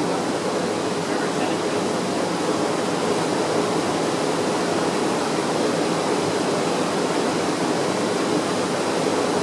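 Steady rushing of a fast-flowing river at a waterfall, its strong current running hard and even.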